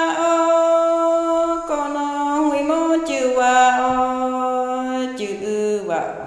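A voice singing a slow chant in long, steady held notes, each lasting a second or two, stepping between pitches and mostly moving lower. It fades briefly near the end.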